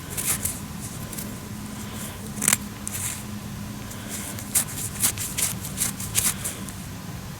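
Hands handling a freshly dug coin and soil: scattered light scratching, rustling and small clicks, over a faint steady low hum that fades near the end.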